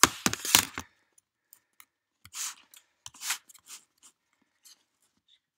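Knocks and clatter of a laptop being handled and set in place by the person filming, then a few faint clicks and two short scuffing rustles.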